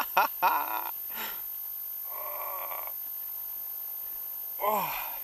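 A man's voice making short wordless exclamations in the first second, a held hum a couple of seconds in, and a short sound that falls in pitch near the end, over a faint steady hiss.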